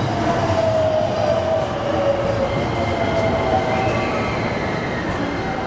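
JR electric commuter train running alongside the platform, with rumbling wheels and rails. Its motor whine falls in pitch over the first couple of seconds as the train slows, and a thin high steady tone follows.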